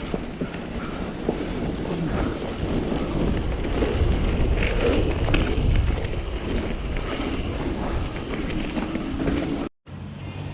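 Mountain bike rattling over rough trail: a continuous clatter of chain slap, frame rattle and tyre noise full of small knocks. It cuts out abruptly near the end and comes back as a steadier low hum.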